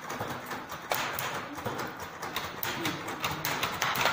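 Several manual typewriters clacking: irregular keystrokes struck by more than one typist at once, some overlapping.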